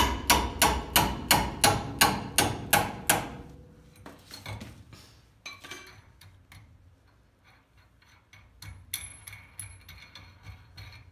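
A rapid run of about a dozen sharp metallic clacks, about three a second, as a wrench works loose the nut on a wheel-stud pull-through setup on a rear hub. It stops about three seconds in, followed by quieter scattered clinks of the steel nut and washers being taken off by hand.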